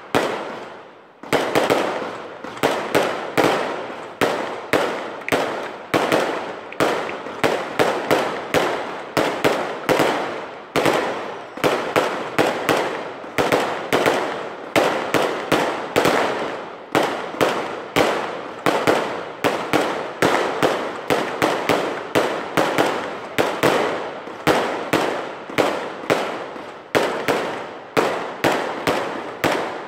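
Aerial fireworks bursting overhead in a rapid, unbroken string of sharp bangs, several a second, with a brief lull about a second in.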